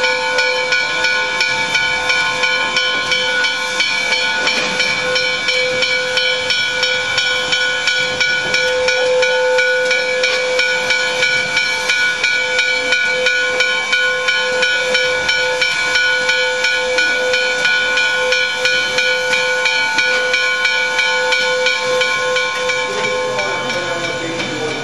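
Steam locomotive blowing off steam: a loud, unbroken hiss carrying several steady whistling tones.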